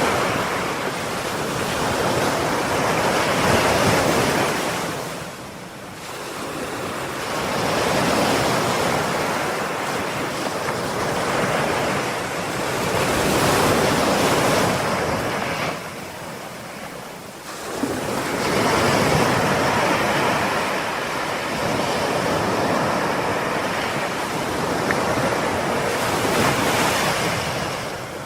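Ocean waves breaking and washing in, the sound swelling and ebbing in long surges, with two short lulls about five and sixteen seconds in.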